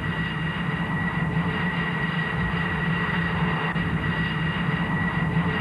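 Twin Snecma M88-2 turbofans of the Dassault Rafale C01 prototype running on the runway: a steady jet roar with a constant high turbine whine.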